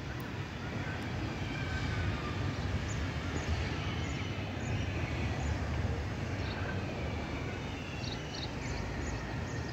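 Steady low outdoor rumble of city background noise, with a few faint, short high chirps scattered through it.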